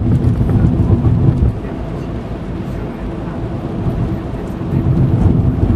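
A moving car's low, steady road and engine rumble heard from inside the cabin, easing a little in the middle and swelling again near the end.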